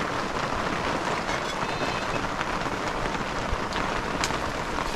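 Steady heavy rain pattering on plastic tarp sheeting, with a few sharper drop ticks in the second half.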